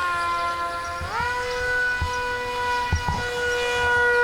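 RC model plane's motor and propeller whining at a steady pitch; the whine rises about a second in as the throttle is opened, then holds at the higher pitch.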